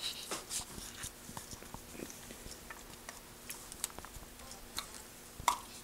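Scattered small metal clicks and taps from a CZ 241 shotgun's receiver and trigger group being handled, with one sharper click about five and a half seconds in.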